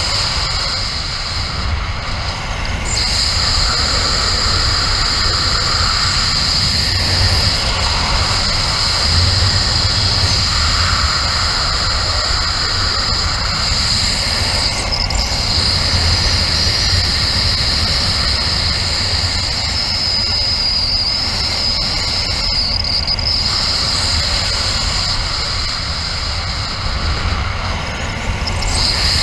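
Wind rushing hard over the camera microphone during a speed-wing flight at full speed with the trims fully released. A steady high whistle runs through the rush and drops out briefly a few times.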